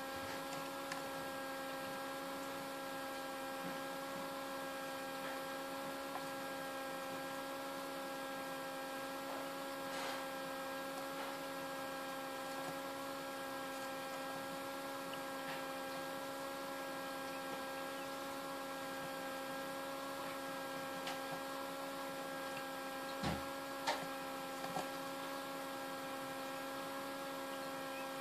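Small egg incubator's fan motor running with a steady hum, broken by a few soft clicks, most of them close together about two-thirds of the way through.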